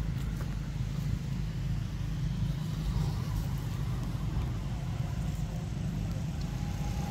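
Steady low background rumble with a faint hiss over it, unchanging throughout.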